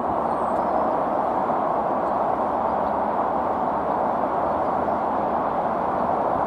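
Steady roar of an Airbus A340-600's four Rolls-Royce Trent 500 engines at climb power just after takeoff, an even rushing noise with no changes.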